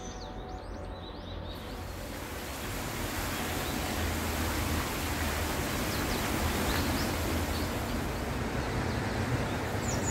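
Small birds give a few short chirps in the first second or so and again near the end, over a steady rushing noise that swells during the first few seconds and then holds.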